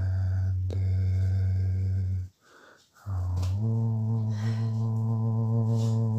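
A low voice humming one long, steady note, breaking off for under a second a little past two seconds in, then taking up a fuller, richer note again.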